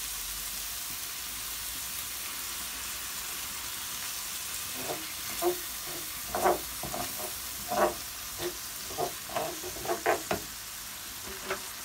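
Onions, bell peppers and tomato sizzling steadily in a frying pan. From about halfway in, a wooden spoon scrapes and knocks against the pan in a quick run of strokes as the mix is stirred.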